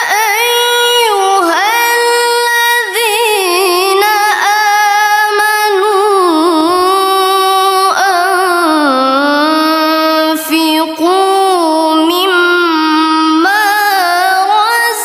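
A high voice reciting the Quran in the melodic tilawah style, drawing out long ornamented notes that slide and waver in pitch, with only brief pauses for breath.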